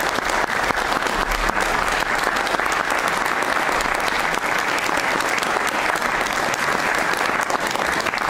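Theatre audience and cast applauding: a dense, steady clapping of many hands.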